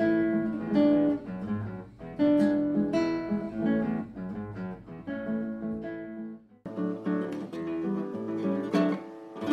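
Acoustic guitar played with picked notes and strummed chords, with a short break about two-thirds of the way through before the playing resumes.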